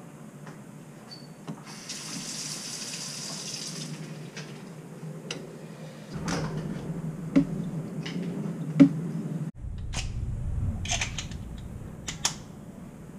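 Water running briefly from a Moen single-handle kitchen faucet, then sharp metal clicks and knocks as the faucet handle is worked and lifted off the cartridge stem.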